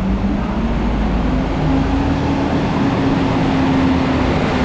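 City street traffic: a vehicle engine running close by, a steady hum that steps up slightly in pitch about a second in, over a low rumble.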